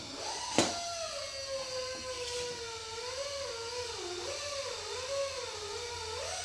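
A sharp knock about half a second in, then an animal's long howl, its pitch wavering slowly up and down.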